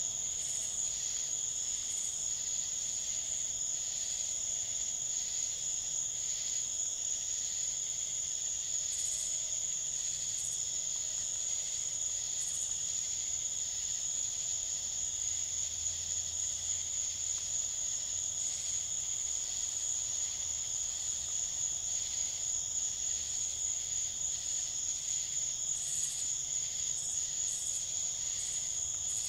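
Night insect chorus: a steady high-pitched trill that runs on without a break, with short higher chirps from other insects now and then.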